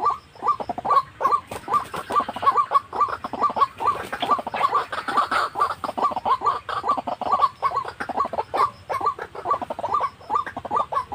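White-breasted waterhen calls: an unbroken run of short falling notes, about four or five a second, thickest about two to six seconds in, where calls overlap.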